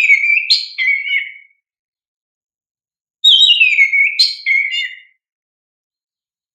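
Oriental magpie-robin (kacer) song: a loud whistled phrase that slides down in pitch, broken by a sharp higher note in the middle, lasting about a second and a half. The same phrase repeats about three seconds later.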